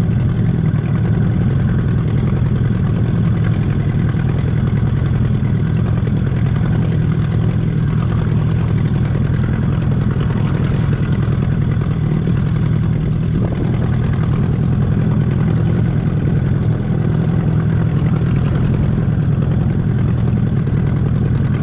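Outboard motor running steadily at low trolling speed, an even drone that doesn't change.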